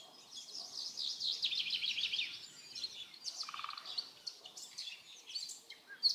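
Several songbirds singing and chirping, with a fast trill a second or two in and a lower, buzzy trill about three and a half seconds in.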